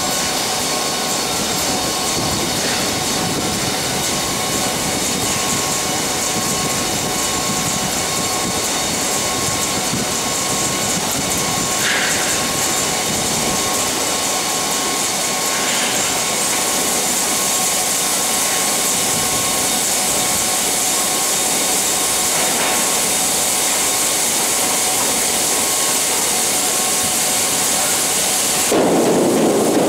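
Wheat pouring out of a grain hopper wagon's open bottom doors into the receival pit: a steady rushing hiss, with a thin steady whine under it. Just before the end it suddenly grows louder and deeper.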